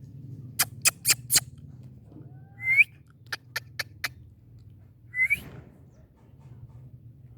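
Indian ringneck parakeet giving two short whistled chirps that hook upward in pitch, the louder about three seconds in and the other about two seconds later, with two quick runs of four sharp clicks. A steady low hum runs underneath.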